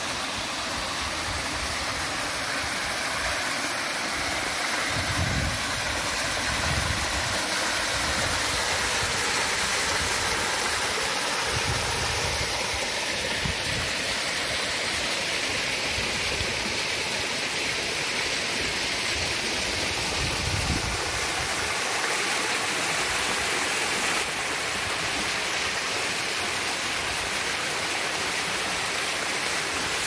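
Steady rush of running water in a rocky creek, with a few brief low rumbles underneath.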